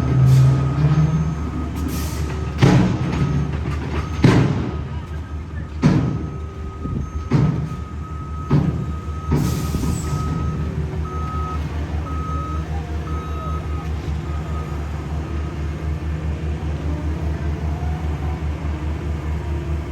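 Diesel road-paving equipment running steadily with an even low pulse, while a backup alarm beeps. About eight sharp knocks or clanks sound over the first half.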